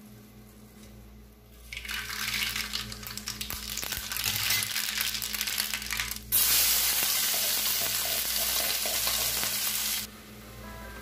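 Mustard seeds spluttering and crackling in hot oil in a frying pan, starting about two seconds in. From about six seconds in, a louder, steady sizzle takes over, then drops away abruptly near the end.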